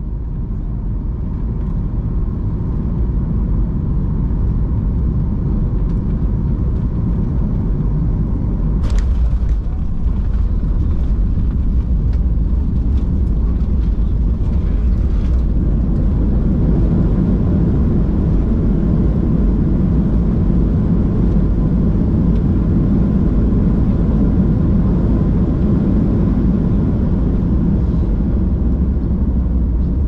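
Jet airliner cabin noise during landing, heard from a seat over the wing: a loud, steady low rumble of engines and airflow, with a sharp bump about nine seconds in as the wheels touch down, then the rumble of the rollout on the runway with the spoilers raised.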